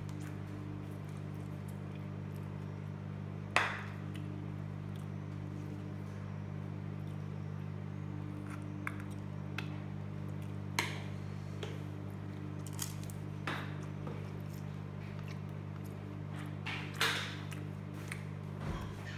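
Someone eating a fried mince samosa with their hands: several short, sharp crunches of bites and chewing, a few seconds apart, over a steady low hum.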